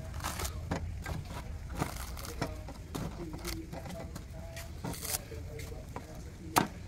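A knife chopping and shaving at a young coconut's husk: a series of irregular sharp knocks, roughly two a second, with a harder strike near the end.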